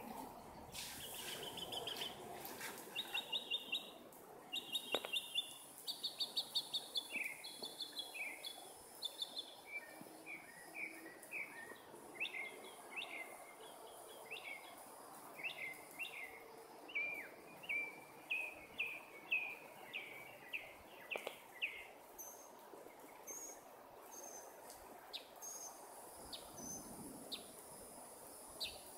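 Bird chirping: a long series of short, quick chirps, several a second, for about twenty seconds, then sparser, higher calls near the end, over faint outdoor background noise.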